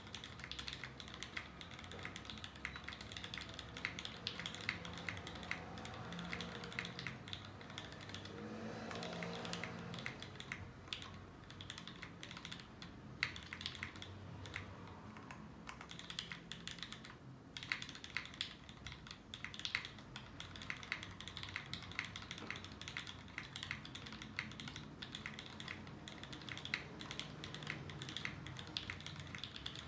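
Steady, fast typing on a DC60 60% mechanical keyboard with lubed milky Gateron Yellow linear switches, a carbon fibre plate and GMK ABS keycaps: a dense patter of key clacks with one brief pause about halfway.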